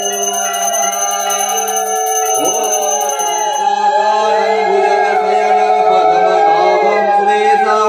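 Conch shells blown in long steady notes together with a ringing puja hand bell that stops about halfway through, while voices rise and fall in pitch over them.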